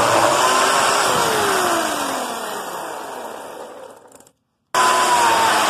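Portland electric chainsaw running through a black walnut log, then the motor winding down with a falling pitch as the trigger is let go. After a brief total dropout, the saw is heard running again near the end.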